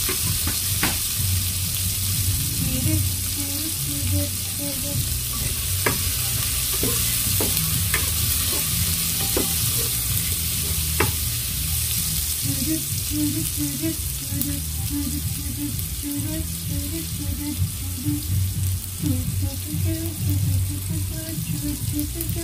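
Tomatoes, garlic and onion sautéing in a pot, a steady sizzle with a ladle stirring and clinking against the pot several times in the first half.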